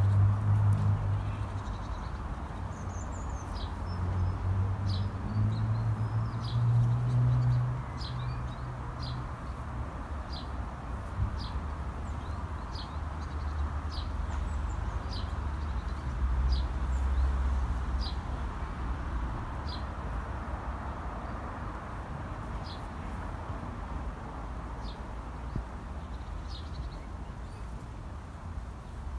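A small wild bird calls a short, sharp, high chirp again and again, about once a second, with the calls thinning out in the last few seconds. Underneath is a steady low outdoor rumble.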